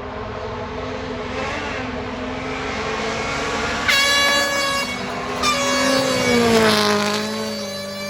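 Rally car at full speed, its engine growing louder as it approaches, with sharp jumps in the engine note about four and five and a half seconds in, then the pitch dropping as it passes by.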